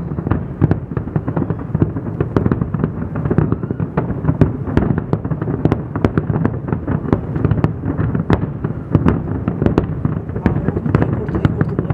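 Fireworks display at its finale barrage: a continuous low rumble of booms with sharp bangs and crackles several times a second, with no pause.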